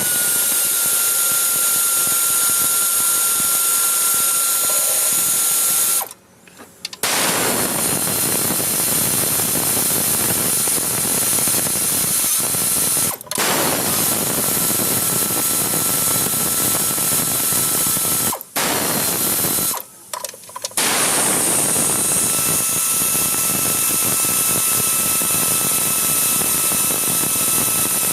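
A power tool running in long stretches of several seconds, with a thin steady whine on top, stopping briefly about six, thirteen, eighteen and twenty seconds in.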